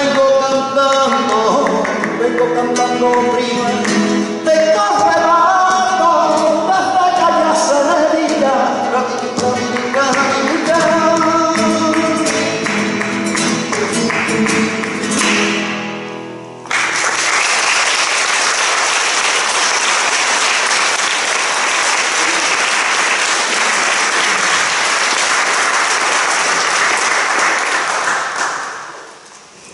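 A flamenco song ending: a male voice singing over flamenco guitar with hand-clapping. The music stops just after halfway, and audience applause starts suddenly and lasts about twelve seconds before fading out near the end.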